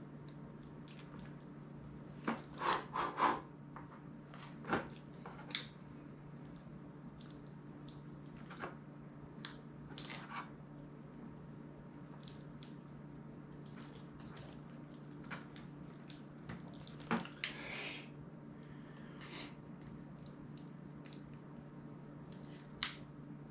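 Small clicks, taps and short scrapes of a hand tool prying at the edge of a metal-bodied Asus Zenfone smartphone being taken apart, in irregular bursts: a busy run of scraping clicks about two to three seconds in and a sharp click near the end. A steady low electrical hum runs underneath.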